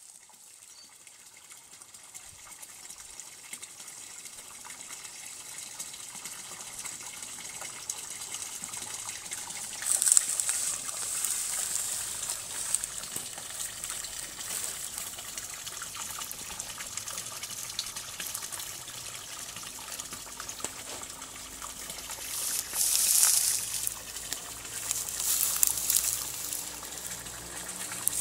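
Water gushing and trickling steadily into a garden pond. It builds up over the first several seconds, with brief louder hissing surges about ten seconds in and again twice near the end.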